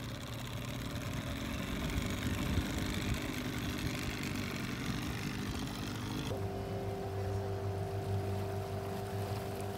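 Evinrude outboard motor running on a small aluminium boat moving through floodwater, with the rush of water around it. About six seconds in, it cuts abruptly to a steady hum of a few fixed tones.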